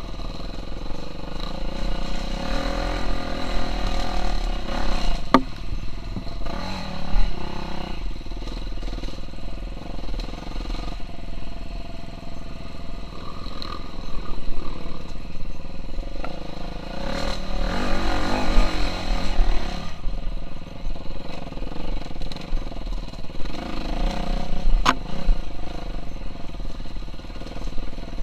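KTM 350 SX-F four-stroke single-cylinder motocross engine running under a rider off-road, the throttle opening in several louder bursts between steadier stretches, with a few sharp knocks.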